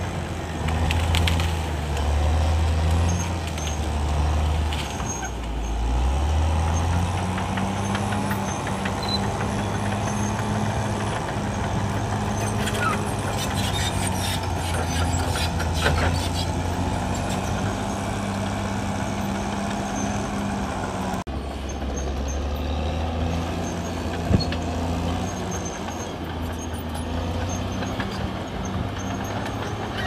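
Caterpillar D6R XL bulldozer's diesel engine running under load while it pushes soil and brush, its pitch shifting as the load changes. Metallic squeals and clanks from the crawler tracks come around the middle, and a single sharp knock follows later.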